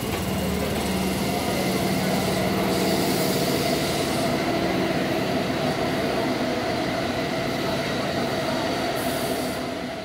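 Tobu electric commuter train running past at close range, its wheels and motors making a steady rumble on the rails.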